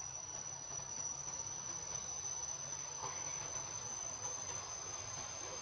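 Insect drone: one steady, unbroken high-pitched tone.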